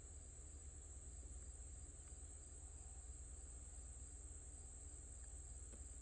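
Faint, steady high-pitched chirring of insects, crickets by the sound of it, over a low background rumble.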